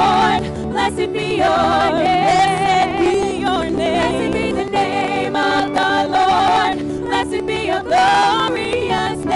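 Several women singing a gospel song together into microphones, voices in harmony with long held, wavering notes.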